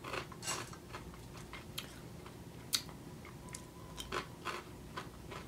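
Dry Cocoa Puffs cereal being picked from a bowl by hand and crunched while eating: faint, irregular crackles and clicks, the sharpest about halfway through.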